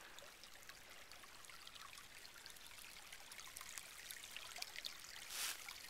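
Faint, steady trickling of a small woodland stream, with a brief louder swish about five and a half seconds in.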